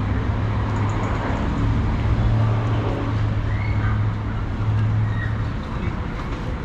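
City street traffic: vehicle engines running nearby, with a steady low engine hum that drops away about five and a half seconds in.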